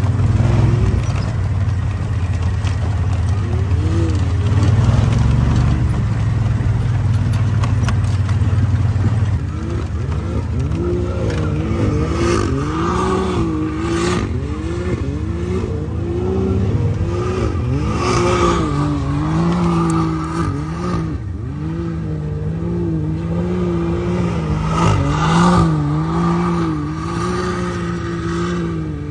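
Side-by-side UTV engine revving up and down over and over while it spins donuts in loose sand, its pitch swelling and dropping in quick waves, with spinning tyres throwing sand. A heavy low rumble dominates the first few seconds before the rising-and-falling engine note takes over.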